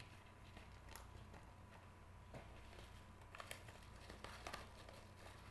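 Near silence with a few faint clicks and rustles of trading cards being handled.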